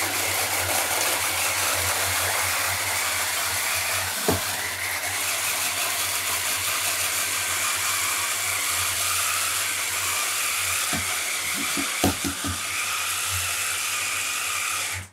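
Electric mini chopper running steadily, its blades grinding almonds and dates with coconut oil into a sticky nut-and-date paste, with a few knocks partway through; the motor cuts off suddenly at the end.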